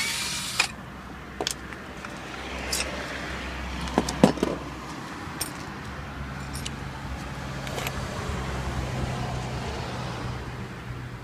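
Cordless drill whirring briefly at the start as it backs out a screw, followed by scattered clicks and knocks of metal tools and parts handled on an aluminium case, the loudest two knocks a little after the middle.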